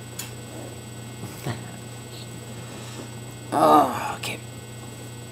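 Steady low electrical hum, with a short voiced sound from the person about three and a half seconds in and a few faint clicks.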